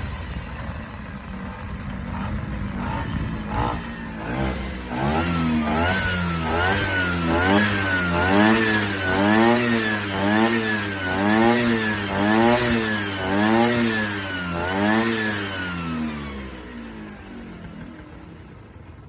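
Vespa PS Strada's two-stroke single-cylinder engine idling, then blipped up and down about once a second, a dozen times in a row, before settling and dying away near the end. The engine is presented as healthy and idling smoothly.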